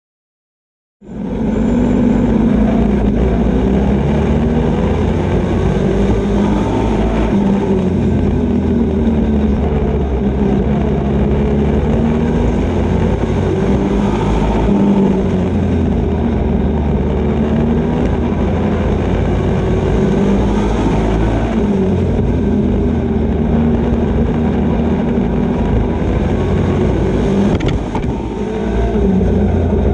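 Super Pro Truck race truck's engine heard from inside the cab, starting about a second in and running hard on the track. Its pitch rises and falls as the driver accelerates and lifts, with a short drop in loudness near the end.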